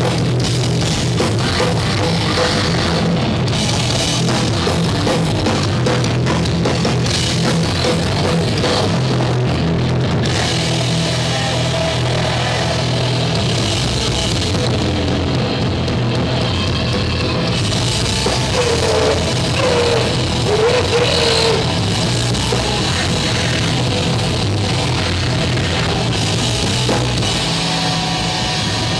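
Live metal band playing loudly and continuously, with distorted electric guitar over a pounding drum kit.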